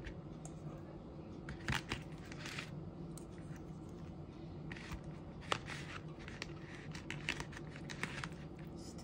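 Scattered light clicks, taps and scrapes from raw tuna steaks being handled in a thin black plastic food container, with marinade poured over them from a stainless steel bowl and the fish pressed down by hand. A low steady hum sits underneath.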